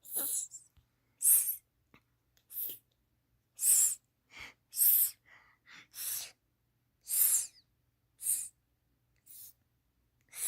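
A person's voice repeating the hissing "sss" sound of the letter S about ten times, each a short hiss, roughly once a second.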